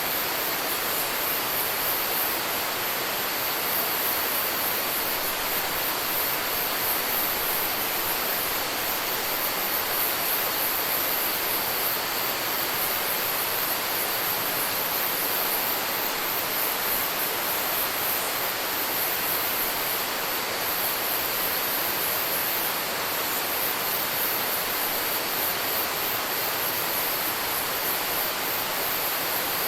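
Rainforest ambience: a steady hiss of water, with a very high-pitched insect chorus pulsing rapidly above it.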